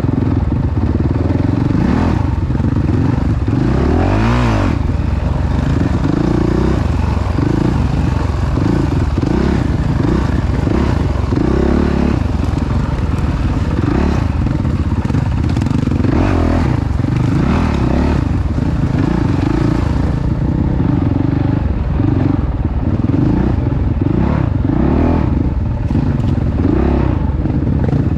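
Off-road motorcycle engine running loud, revving up and down continuously as it rides over rough ground, with scattered clatter.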